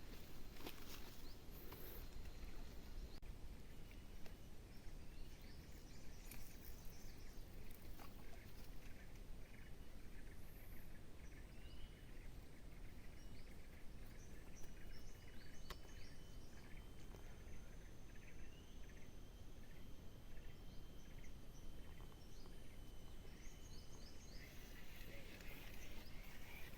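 Lakeside ambience: birds chirping over and over, with a thin, steady high insect drone underneath and a few faint clicks.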